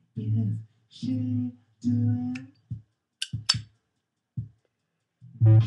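A Zippo lighter's metal lid clicking sharply several times, about three seconds in, as it is flicked open and shut with the thumb. Before that comes a stretch of music with a singing or humming voice, which returns near the end.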